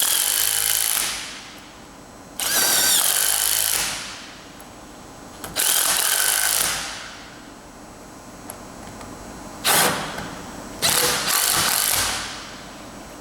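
Impact wrench hammering in several short bursts, each about a second long, as it runs the nuts down on the bolts of a hinged plate-grip conveyor belt fastener. The last two bursts come close together near the end.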